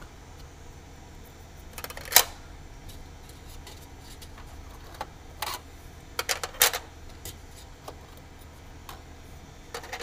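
DDR3 ECC memory modules being pushed into server motherboard DIMM slots: sharp plastic clicks of the retention latches snapping shut, the loudest about two seconds in and several more around six to seven seconds, over a steady low hum.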